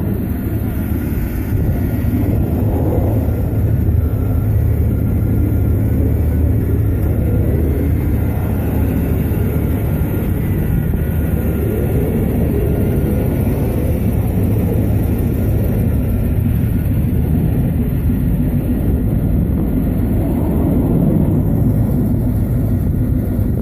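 1996 Camaro Z28's 5.7-litre V8 running steadily, with a constant low hum and a few slow swells.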